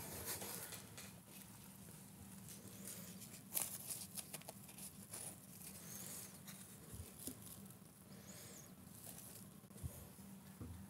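Faint rustling and light clicks of hands handling craft materials on a work table, a cluster of sharper clicks about three to four seconds in, over a steady low hum.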